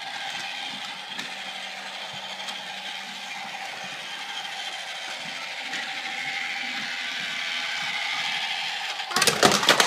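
Battery-powered LEGO Duplo toy train running along plastic track, its small motor whirring steadily with the rattle of its wheels. Near the end comes a short burst of loud clattering.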